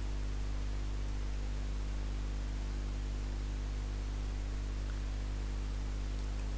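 Steady low electrical hum with an even hiss over it.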